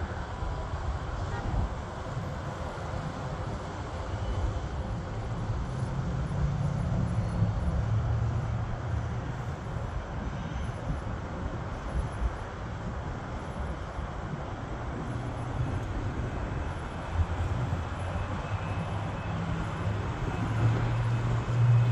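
Steady low rumble of a twin-engine jet airliner's engines passing overhead at a distance, growing louder near the end.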